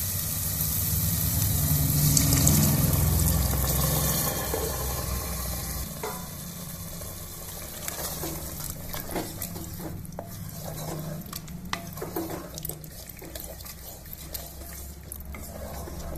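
Boiled chickpeas and their liquid poured into hot fried masala in an aluminium pressure cooker, hissing and sizzling loudly for the first few seconds. After that a wooden spatula stirs them through the gravy, with scattered knocks against the pot.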